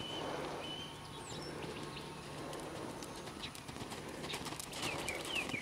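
A horse's hooves beating on sand footing as it canters on the lunge line. Near the end a bird chirps in a quick run of short falling notes.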